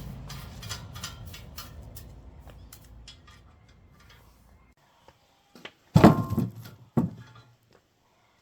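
A machine's low rumble with light rattling dies away over a few seconds. Then come two loud knocks about a second apart.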